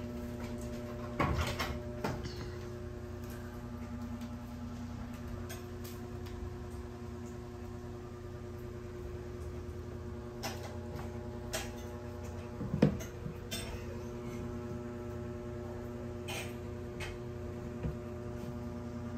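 Steady electrical hum, with scattered light knocks and clicks over it; the sharpest knock comes about 13 seconds in.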